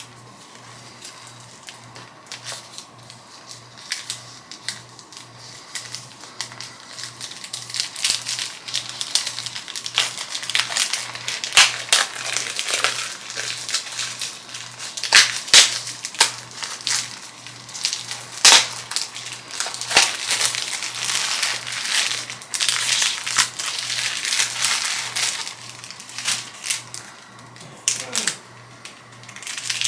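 Packaging crinkling and rustling as an item is cut and unwrapped, with a long run of irregular sharp crackles that are loudest in a few bursts near the middle.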